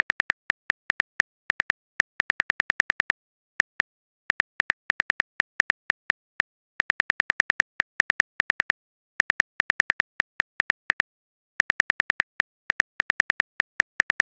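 Phone keyboard typing sound effect: quick, identical clicks in bursts of several a second, broken by short pauses.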